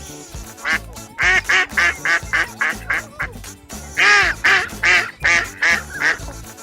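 A duck quacking in two runs of short, rapid quacks, about three a second, over backing music with a steady beat.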